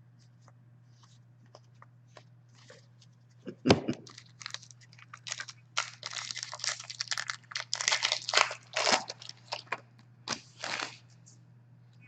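Foil wrapper of a hockey card pack being torn open and crinkled. A sharp crack comes about four seconds in, then several seconds of tearing and crinkling.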